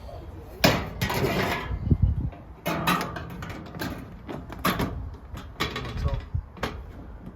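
Gazebo roof panel being worked into its frame: a long scraping rush about a second in, then a string of shorter knocks and clatters.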